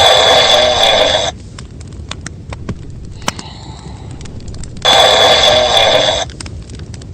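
Cartoon snoring sound effect: two loud snores, each about a second and a half long and about five seconds apart, with a much softer breathing sound between them.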